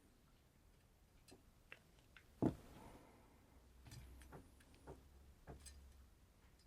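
Scattered small clicks and taps of tools and parts being handled at a workbench, with one louder knock about two and a half seconds in.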